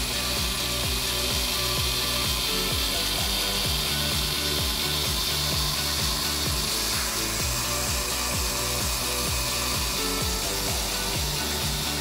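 A DIY pneumatic CNC engraving machine at work: its stepper motors and ball screws hum in low tones that jump from pitch to pitch as the axes change speed and direction, over the engraving tool's steady hiss and chatter.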